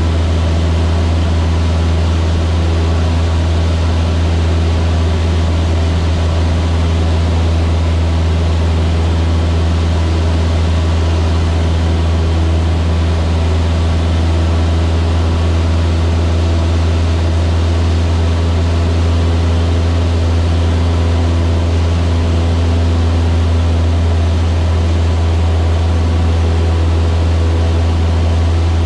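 Steady drone of a Cessna 152's four-cylinder Lycoming O-235 engine and propeller heard inside the cockpit, running at an even power setting with no change in pitch.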